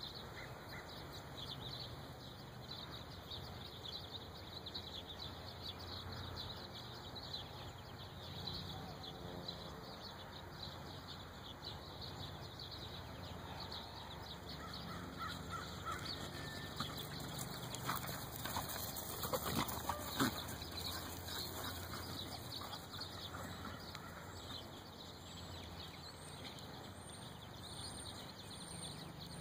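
Outdoor ambience: a steady background hiss with birds calling, and a few sharp knocks in a cluster past the middle.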